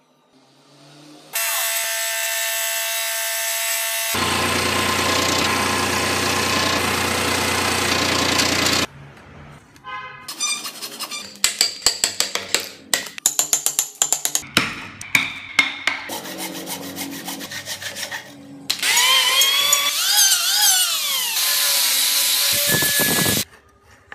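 Woodworking tool sounds: a power tool runs steadily and then cuts into wood with a louder, rougher sound. Next comes a long run of sharp knocks as a chisel chops out blocks of wood between saw kerfs. Near the end a tool whirs with a pitch that rises and falls.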